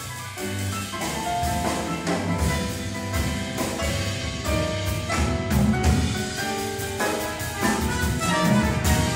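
Live jazz combo of piano, hollow-body electric guitar, upright bass and drum kit playing, with a trumpet joining near the end.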